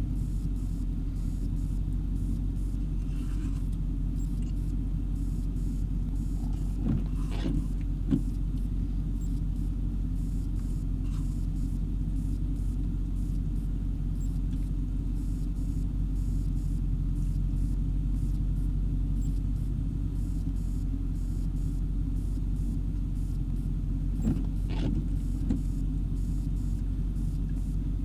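Steady low hum of a parked car idling, heard from inside the cabin, with a few faint clicks about seven seconds in and again near the end.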